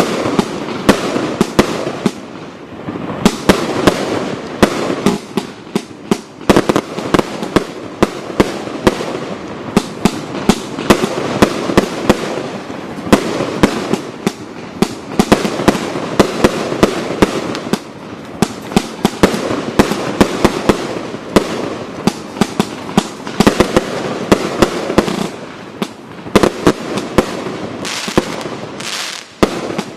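Thrillseeker multishot firework cake firing continuously: rapid sharp bangs, several a second, over a steady crackle.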